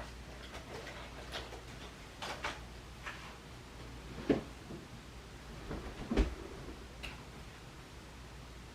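Scattered small clicks and taps of things being handled, with two louder knocks about four and six seconds in, over a steady low hum.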